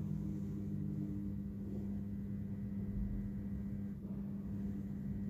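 A steady low hum with no break.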